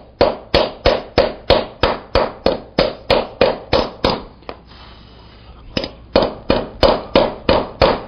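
Ball-peen hammer beating a hot iron spoon blank down into the end grain of a wooden stump. The blows come about three or four a second, with a pause of about a second and a half midway before they resume. This is dishing the spoon's bowl into a hollow that the hot iron burns into the wood.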